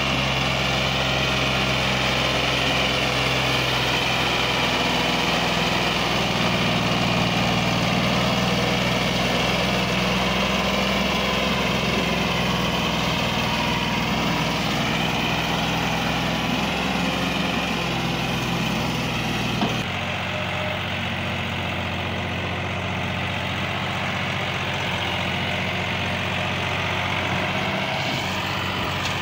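Massey Ferguson tractor's diesel engine running steadily under heavy load, hauling a towering sugarcane trolley. The engine note changes abruptly about two-thirds of the way through.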